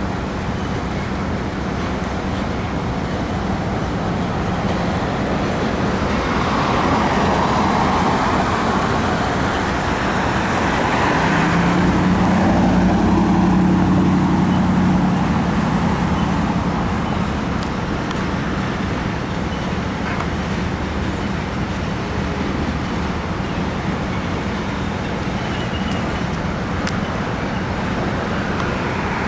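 Freight train of tank cars rolling over a steel girder bridge: steady noise of wheels on rail. A road vehicle passes below, swelling the sound about halfway through.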